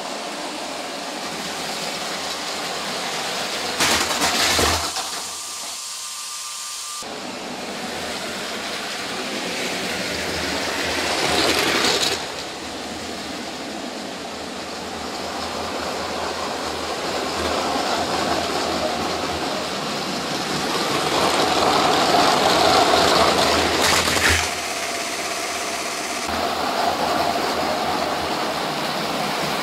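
Battery-powered LEGO City toy trains running on plastic track: a steady whirr of small electric motors with wheels rattling over the track joints, swelling as a train nears and dropping off abruptly several times.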